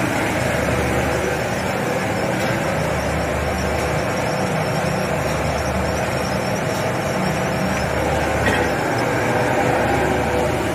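Steady mechanical drone of a waste-tyre pyrolysis plant's machinery running during processing, with a low hum underneath.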